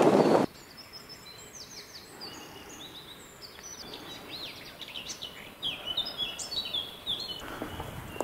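Several small birds singing in woodland: many short chirps, sweeps and trills over a quiet background. It opens with half a second of loud wind noise that cuts off suddenly, and a rustling noise comes in near the end.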